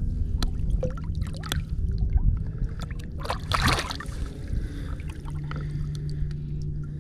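Water sloshing and splashing against the side of a boat as a redfish is held in the water and released by hand, with a bigger splash about three and a half seconds in. A steady low hum starts about five seconds in.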